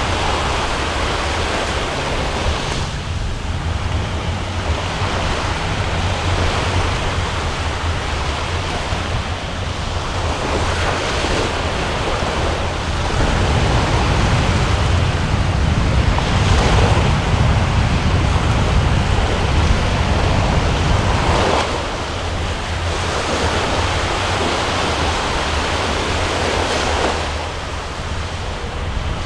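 Wind buffeting the microphone with a low rumble, over the wash of a choppy, whitecapped sea; it swells louder for several seconds in the middle.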